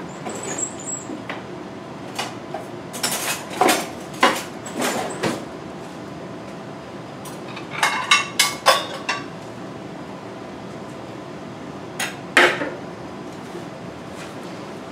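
Dishes and kitchen utensils clinking and clattering in three short bursts of sharp clicks, over a steady background hiss.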